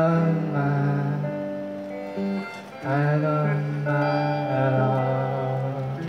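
Harmonica playing a solo line over guitar, held chords entering with an upward bend at the start and again about three seconds in.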